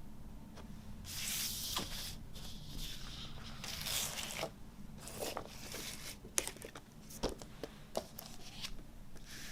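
Vinyl album packaging being handled: paper and card sleeves rustling and sliding for a few seconds, then a run of light taps and clicks.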